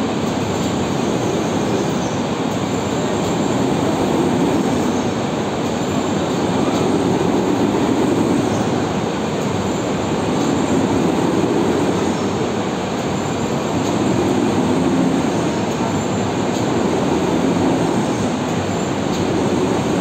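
Steady heavy-machinery rumble in a hydro powerhouse, swelling and easing slowly, with no clear strikes or knocks.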